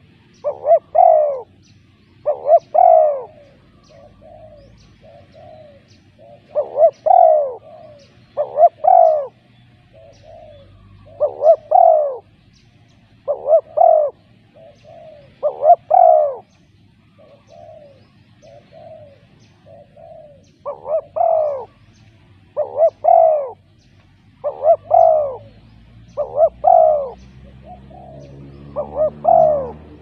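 Spotted dove cooing: loud paired coos repeating about every two seconds, with softer coos between them.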